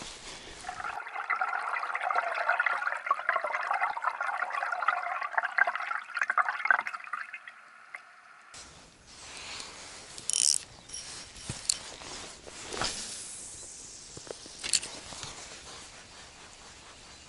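Water gurgling and rushing as picked up by an underwater camera, a dense fluttering sound with no low end, for about seven seconds. It cuts off suddenly, leaving quieter open-air ambience with a few faint clicks.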